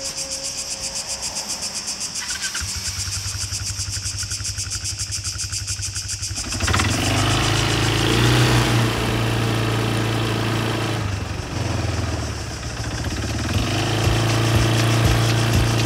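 Insects chirr in a fast, even pulse. A quad bike's engine starts about two and a half seconds in and idles. About six and a half seconds in it gets much louder as the quad pulls away and runs along the road, easing off briefly and picking up again.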